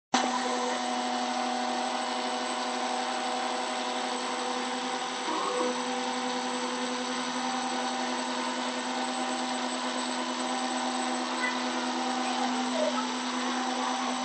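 CNC router spindle running steadily while its engraving bit mills traces into a copper-clad circuit board: a constant-pitch hum over a steady hiss.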